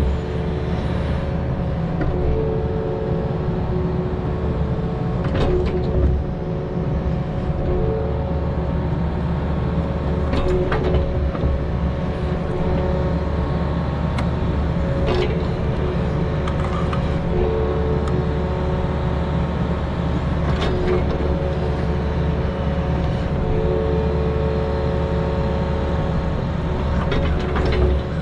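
Excavator engine running steadily under working load, with a whine from the hydraulics that swells and fades every few seconds as it digs and moves dirt. Sharp knocks come at intervals of about five seconds.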